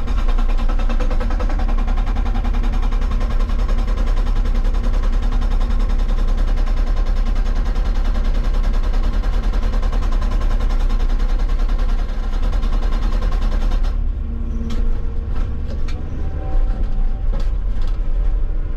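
Hydraulic rock breaker on a Hitachi 160 excavator hammering rock in a rapid, steady run of blows over the running machine. About 14 seconds in, the hammering stops, leaving the excavator's engine drone with a few scattered clicks and knocks.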